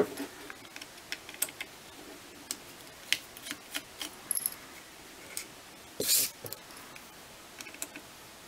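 Small screwdriver working screws out of a plastic flashlight housing: scattered light clicks and ticks of metal on the screw heads and of hands handling the casing, with one louder, brief scrape about six seconds in.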